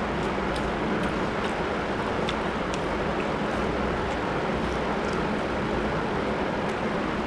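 Steady rushing background noise, with faint scattered clicks from chewing and from fingers mixing rice on a metal plate.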